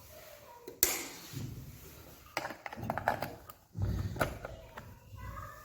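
A sharp click about a second in, then a run of small clicks and taps and a dull knock, from handling the repaired LED bulb and its holder while setting it up to test.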